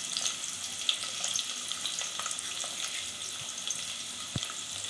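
Sliced onions frying in hot oil in a pot: a steady sizzling hiss with small crackles, and one knock near the end.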